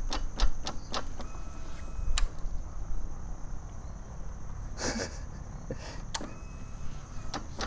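Irregular sharp clicks as a Royal Enfield motorcycle's electric starter is tried again and the engine does not turn over, which the riders take for a dead battery.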